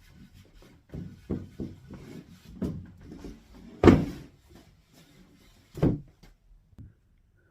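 A string of irregular knocks and clunks, like wood being handled and set down; the loudest comes about four seconds in, with another about two seconds later.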